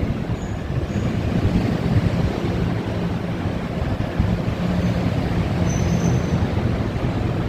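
NJ Transit train running along the platform, a steady rumble from the railcars and wheels, with a brief faint high-pitched squeal about six seconds in.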